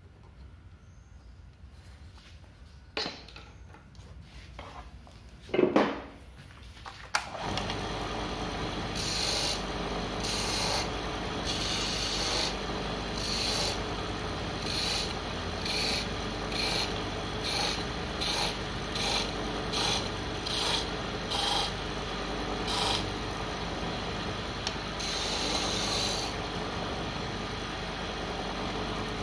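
A few knocks, then a wood lathe starts about seven seconds in and runs with a steady hum. A pointed tool is pressed again and again against the spinning mahogany handle, each touch a short scraping rub, about one a second.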